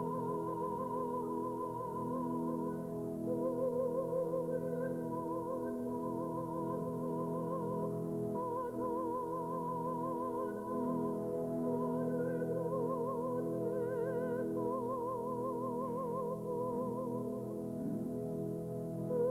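Church choir singing long held notes with wide vibrato, over sustained organ accompaniment.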